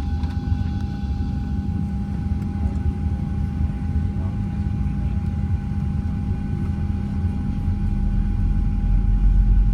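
Cabin noise of a Boeing 737-700 on the ground: a steady engine rumble with a constant whine running through it. The low rumble grows louder about eight seconds in.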